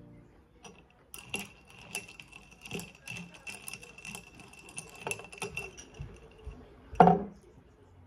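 Ice cubes clinking against a tall drinking glass as an iced drink is stirred with a straw: a quick, irregular run of clinks over a thin ringing tone. About seven seconds in comes a single loud knock on the table.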